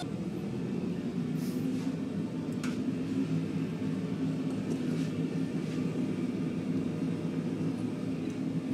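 Steady low drone of running shop equipment, with a few faint metallic clicks from the tongs and kiln.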